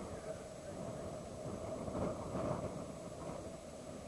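Wind gusting across the microphone: a rushing noise that swells and eases.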